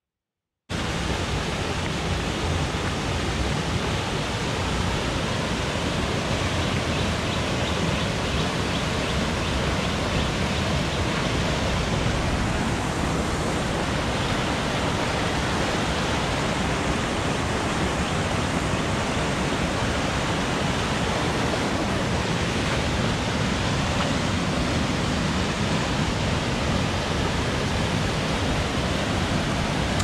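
Loud, steady rush of white water tumbling over boulders in a stream cascade below a waterfall. It starts abruptly just under a second in.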